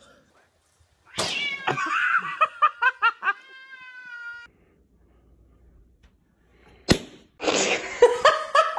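Cat meowing and yowling in several short calls, with a person's voice mixed in.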